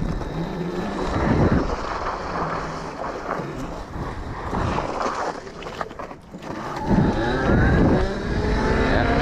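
A 72-volt electric pit bike moving slowly through snow with uneven tyre and wind noise, then about seven seconds in its electric motor whine rises in pitch and gets louder as the bike accelerates on the road.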